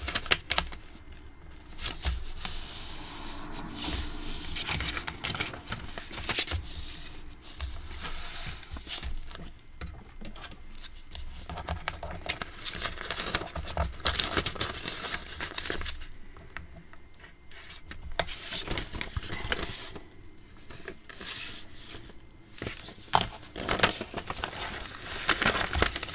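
A paper bag being refolded and pressed flat by hand: irregular crinkling and rustling of the paper, with a few sharper crackles.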